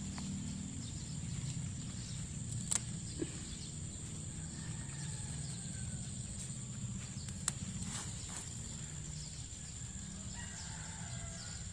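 Faint roosters crowing, twice: once about halfway through and again near the end. The calls sit over a steady high whine and a low rumble, with a few light clicks.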